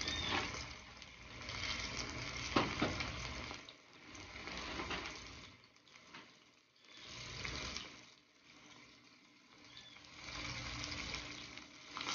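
Breaded croaker steaks sizzling in shallow hot oil in a stainless steel frying pan, the sizzle swelling and fading in waves, with one sharp click about two and a half seconds in.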